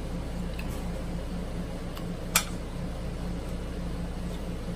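Steady room hum and hiss, with one sharp click about halfway through and a couple of fainter ticks as seafood is handled by hand over the platter and sauce cup.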